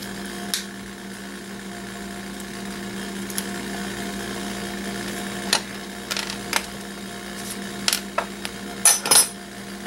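Side cutters snipping wire and small metal parts clicking on a workbench: scattered sharp clicks, most of them in the second half, loudest near the end. Under them runs a steady low hum.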